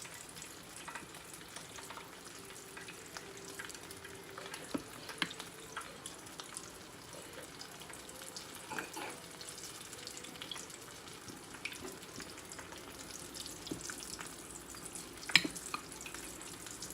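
Stuffed tortilla tacos frying in hot oil: a steady sizzle and crackle with scattered small pops, and a sharp click near the end.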